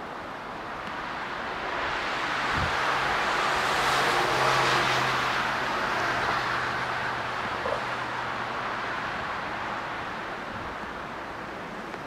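A car passing on the road: its tyre and engine noise swells to a peak about four to five seconds in and then fades away, with a low steady hum under it.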